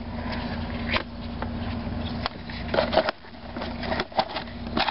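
Scattered light clicks and knocks from handling on a wooden base, with a few sharper ones about three seconds in, as a fire is being readied under a small model Stirling engine's burner. A steady low hum stops suddenly a little over two seconds in.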